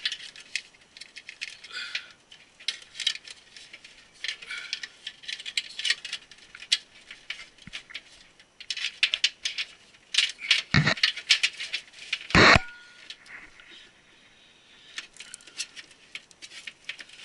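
Cables and connectors being handled and pushed down inside a server case: a steady run of small clicks and rattles, with two sharper knocks about eleven and twelve seconds in, the second the loudest.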